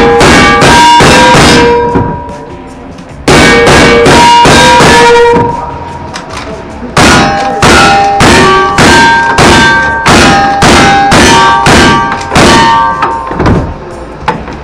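Rapid black-powder gunshots, each followed by the ringing of a struck steel target: two quick strings of about five shots, a pause, then a steadier string of about ten shots at a little under two a second.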